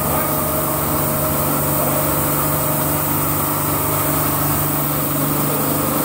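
Automatic carpet washing machine running: a steady machine hum with an even hiss over it.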